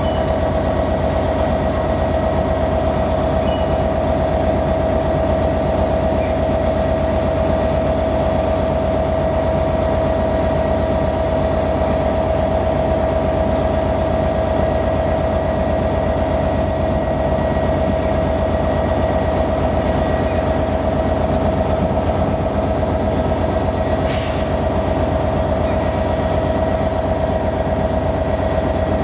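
British Rail Class 158 diesel multiple unit's underfloor diesel engines running steadily at idle: a constant drone with a steady whine on top. A short sharp clank near the end.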